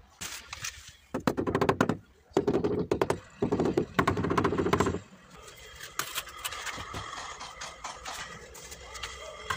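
White rubber mallet tapping a ceramic wall tile in three quick runs of rapid blows in the first half, bedding the tile into the combed tile adhesive. A fainter steady hum follows.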